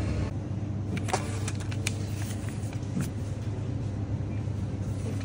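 Steady low hum of a self-serve coffee vending machine, with a few sharp clicks about one, two and three seconds in.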